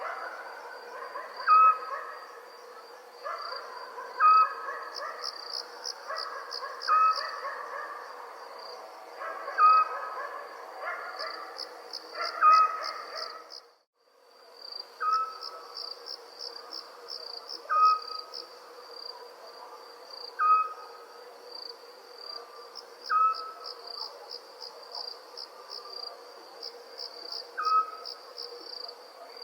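Crickets trilling steadily, with a short owl call repeating about every two to three seconds. The sound cuts out briefly about halfway through.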